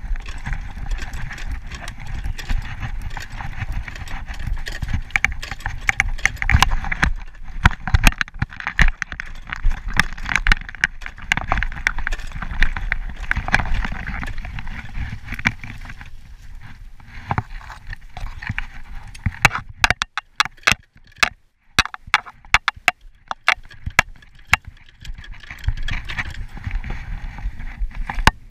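Tirfor hand winch being worked with its lever, its jaws clacking in a steady clatter as the wire rope is tensioned to pull a tree over. The clacks thin out into sharper, separate clicks about two-thirds of the way through.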